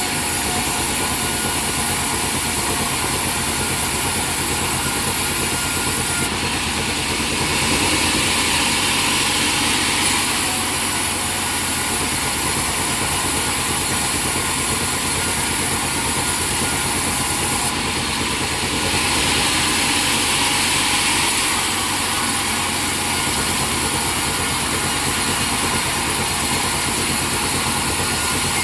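Sawmill machinery running steadily, with the sound changing for three to four seconds twice, about six and eighteen seconds in.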